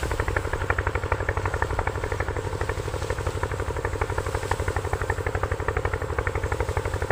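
A motor running steadily with a fast, even pulsing beat.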